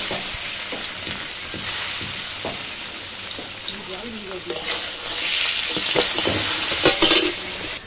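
Koi fish (climbing perch) sizzling as they fry in hot oil in a metal kadai, with a spatula knocking and scraping against the pan as the fish are turned. The sizzle swells louder in the second half.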